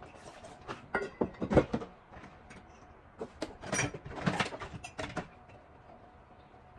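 A quick run of knocks and clatters, household objects being handled and set down, bunched between about one and five seconds in, then it goes quiet.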